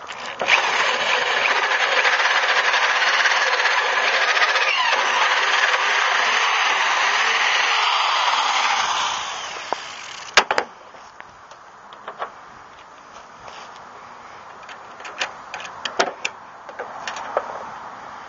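Cordless drill boring into the steel tailgate strap bracket for about nine seconds, then winding down. A sharp knock follows a second later, then scattered light clicks.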